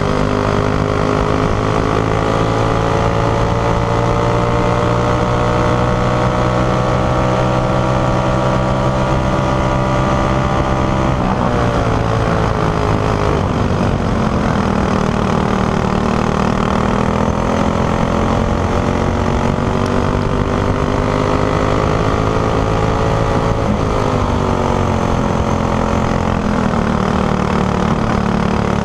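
Racing go-kart engine at full throttle under the driver's seat. Its revs climb steadily for about eleven seconds, drop sharply as the driver lifts for a corner, pick up again, and drop sharply once more about 24 seconds in before climbing back out of the turn.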